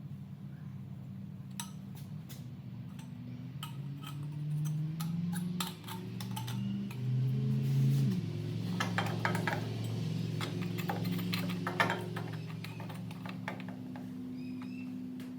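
Light metal clinks and rattles of exhaust parts and tools being handled, thickest a little past the middle, over a low steady hum that changes pitch a few times.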